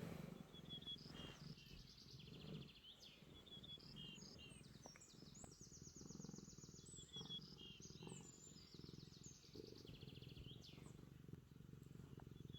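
Faint small birds chirping and trilling, with many short, rapid high trills overlapping throughout, over a low steady rumble.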